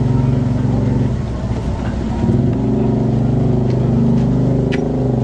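A van's engine idling steadily, with a brief change in pitch about a second and a half in. A few light clicks come near the end.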